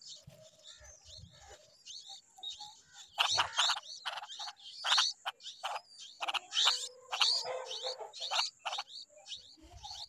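Bulbul nestlings begging: many short, rasping calls in quick succession, sparse at first and then louder and much busier from about three seconds in.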